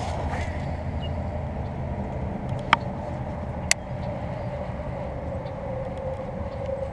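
Casting reel being cranked to retrieve a lure after a cast, giving a steady whir, with two sharp clicks about a second apart near the middle.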